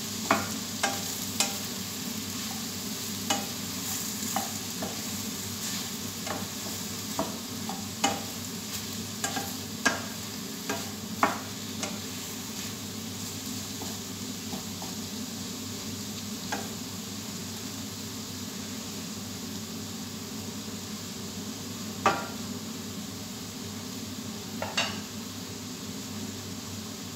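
Ampalaya and egg frying in a stainless steel pan, sizzling steadily, while a spatula stirs and knocks against the pan. The knocks come often for the first twelve seconds, then only a few more times, twice near the end.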